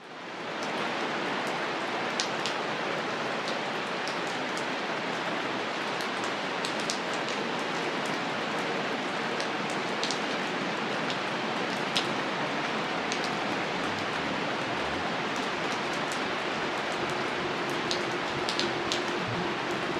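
Steady rain falling, a dense even hiss with scattered individual drops ticking through it, fading up from silence within the first second.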